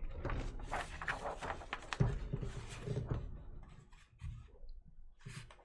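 Paper rustling and crinkling as a large paper wall calendar is handled. It is busiest in the first three seconds, then turns fainter, with one short rustle near the end.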